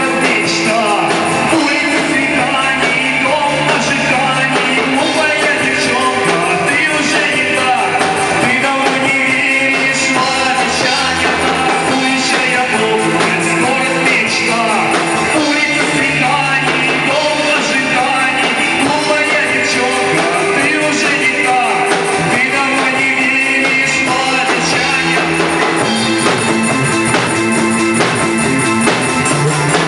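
Music: a cover song with band backing and singing.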